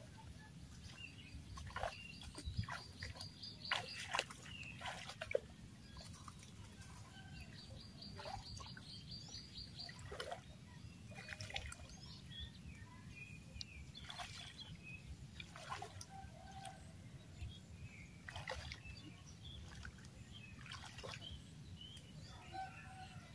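Faint splashing and sloshing as hands and feet move through the shallow water of a flooded rice paddy, with scattered short splashes and rustles, the loudest in the first few seconds. A high, rapid trill sounds twice in the background.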